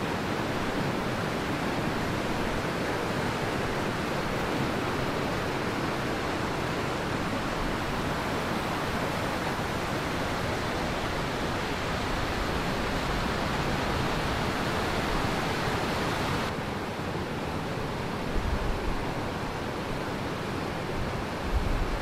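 Rushing water of a stream tumbling down rapids and a small waterfall over granite ledges: a steady, full rush. About three-quarters in it turns slightly duller, with a couple of brief low bumps near the end.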